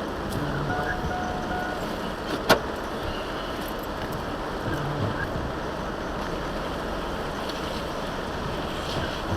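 Steady road and rain noise heard from inside a moving truck cab. A faint electronic tone runs for about a second near the start, and a single sharp click comes about two and a half seconds in.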